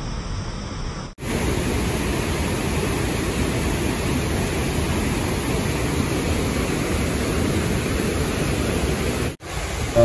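Whitewater rapids rushing over rock ledges: a loud, steady, deep rush of water. It cuts out briefly twice, about a second in and again near the end.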